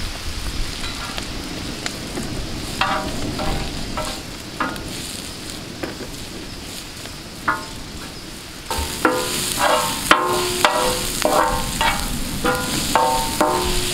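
Sliced onions sizzling in hot oil in a large black iron pan, with a steel spatula scraping across the pan as they are stirred. The stirring scrapes come only now and then at first, then grow louder and come in quick succession from about two-thirds of the way in.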